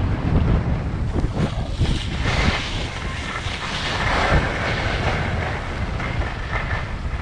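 Wind rushing over the microphone of a moving skier, with the hiss and scrape of skis carving over packed snow.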